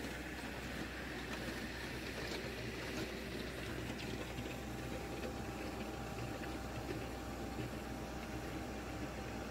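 Backhoe loader's diesel engine running steadily, with its auger attachment raised and not drilling.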